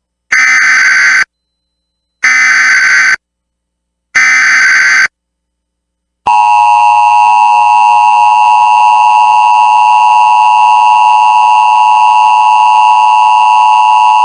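Emergency Alert System (SAME) header: three one-second bursts of digital data tones about a second apart. Then, about six seconds in, the steady alert attention tone starts. Together they mark the start of a new NOAA Weather Radio warning broadcast.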